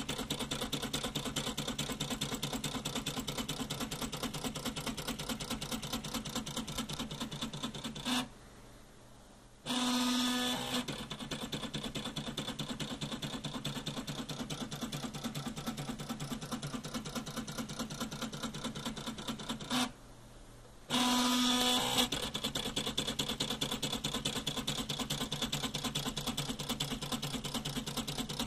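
Homemade dot-matrix pen printer built from CD-drive parts running: the CD tray-opening mechanism taps a felt-tip pen up and down while stepper-driven CD-drive sleds step it along, a fast, steady mechanical clicking. Twice the clicking stops for about a second, then a louder, steadier motor tone sounds for about a second before the clicking resumes.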